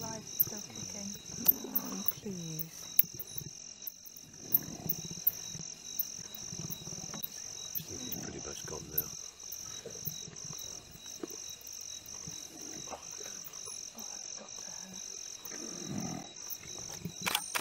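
A night chorus of frogs and insects pulsing in a high, even rhythm about twice a second. Under it come scattered low sounds and knocks from lions pulling at a hippo kill.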